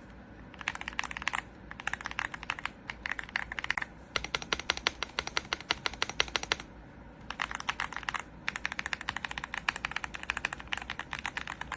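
Typing on a Womier SK71 mechanical keyboard with pre-lubed linear switches: rapid keystrokes in several bursts with short pauses between.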